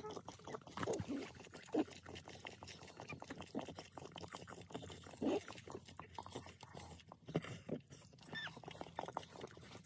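Whelping XL Bully and her newborn puppies: short whines and grunts over rustling in the blankets, with a couple of high squeaks about eight seconds in.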